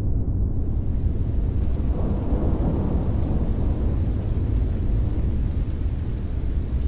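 A deep, steady rumble. Its middle register swells about two seconds in and fades again by about four seconds.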